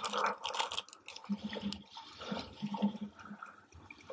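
Foil blind-bag wrapper crinkling in fits and starts as hands work it open.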